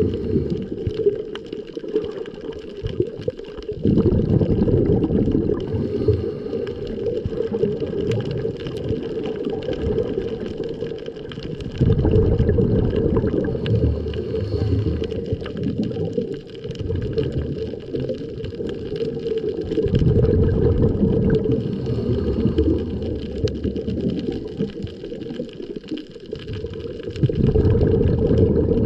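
Muffled underwater water noise: a low rumbling slosh that swells louder about every eight seconds.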